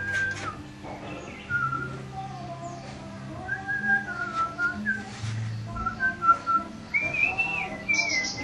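A man whistling a tune along with a song playing on a stereo, his notes stepping up and down and climbing higher near the end.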